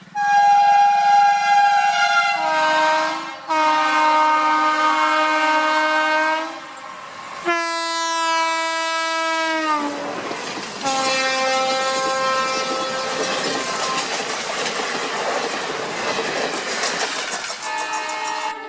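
Indian Railways locomotive horn sounding long blasts, then one whose pitch drops as the train passes. The rushing and clickety-clack of the passing train follows, with a further shorter horn note.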